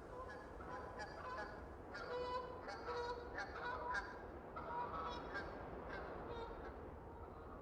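A flock of geese honking, many short overlapping calls, busiest in the middle and thinning toward the end, over a low steady rumble of outdoor ambience.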